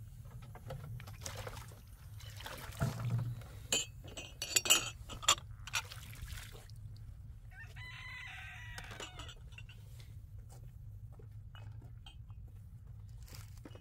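Several sharp clinks and knocks a few seconds in, then a rooster crows once, about eight seconds in.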